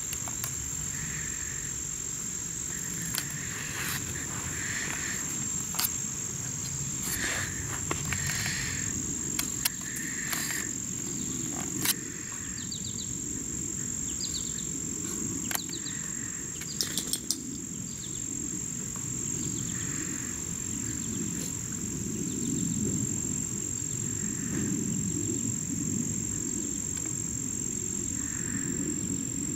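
Outdoor summer ambience: a steady high insect drone with scattered short chirps, a low rumble underneath, and a few sharp clicks.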